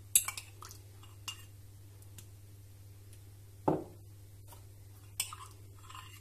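A metal spoon clinking against the rim of a bowl as it is dipped and scraped to glaze cookies: a few light clinks at the start and again near the end, with one duller, louder knock in the middle.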